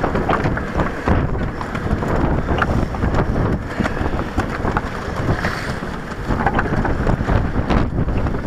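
Wind buffeting the microphone on a sailing yacht's deck, with scattered light knocks and clicks from the rigging and lines being handled at the mast and winches.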